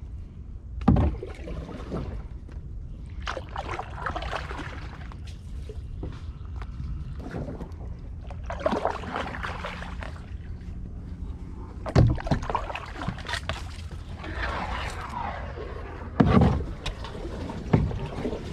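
Kayak being paddled: paddle strokes swishing and splashing in the water every few seconds, with sharp knocks about a second in and again at about twelve and sixteen seconds.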